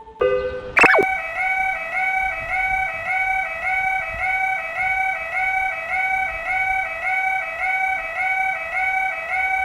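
Warbling electronic alarm of a British-style level crossing. A pitched tone steps up and down about one and a half times a second, starting with a quick rising sweep about a second in.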